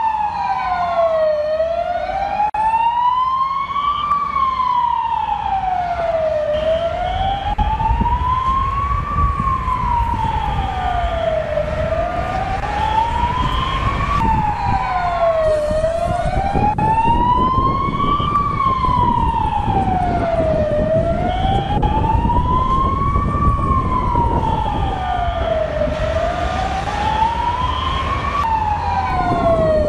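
Emergency vehicle siren wailing, its pitch slowly rising and falling about once every five seconds. Twice it jumps abruptly back to the top of its sweep. A low rumble runs beneath it.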